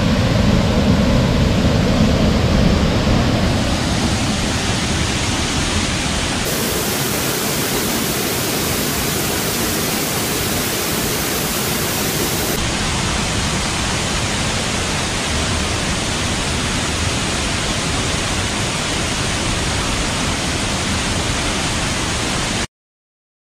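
Steady rush of a waterfall and stream: a constant, even hiss of falling water that cuts off abruptly near the end.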